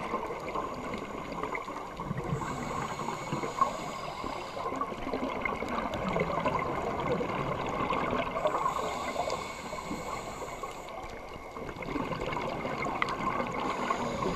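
Underwater sound through a diver's camera: a constant crackle and hiss. A higher hiss comes and goes for a couple of seconds about every six seconds, typical of the diver breathing through a scuba regulator.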